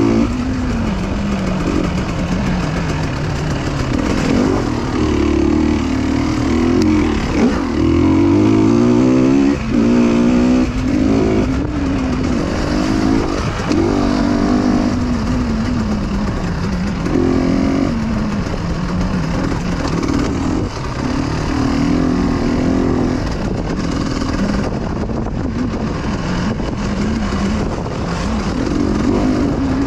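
Motorcycle engine under way, its pitch rising and falling again and again as the throttle opens and closes, over steady wind hiss.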